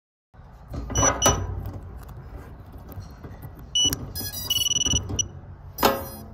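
GEPRC Crocodile Baby FPV quadcopter being handled and powered up: sharp handling clicks, then short high electronic beeps, a quick run of beeps and a held beep from the drone's motors and ESCs as the battery is connected. A steady low rumble runs underneath.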